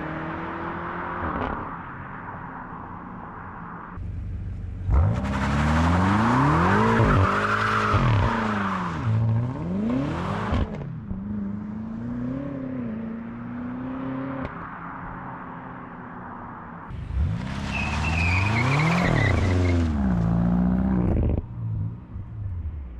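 BMW F90 M5 Competition's twin-turbo V8 exhaust as the car drives past twice, loud for several seconds each time, about 5 s in and again about 17 s in. The engine note rises and falls on each pass, with a fainter engine sound between the passes.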